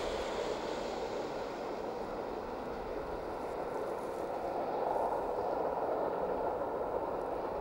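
Rhaetian Railway train running across a viaduct, heard from a distance: a steady rolling noise that swells slightly about five seconds in.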